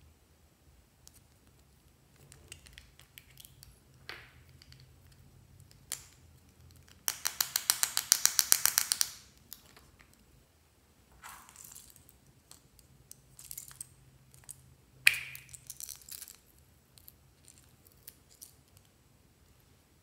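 Hard plastic toy container handled and twisted open, with scattered clicks. About seven seconds in comes a fast run of sharp clicks lasting about two seconds, and near the three-quarter mark a single sharp click and a short rattle.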